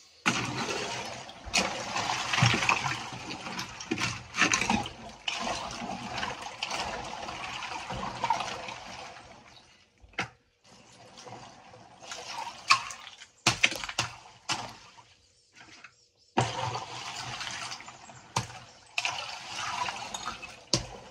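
Ice water and floating ice chunks sloshing and swirling as a hand stirs them in a chest freezer, with a short pause around ten seconds in and a few sharp knocks in between.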